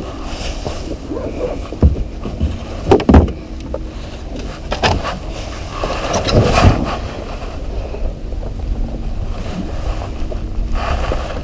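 Steady low rumble of wind and water around a small open skiff, with a faint steady hum underneath. Several sharp knocks and clunks from fishing rods and gear being handled in the boat, the loudest about three seconds in and again around six and a half seconds.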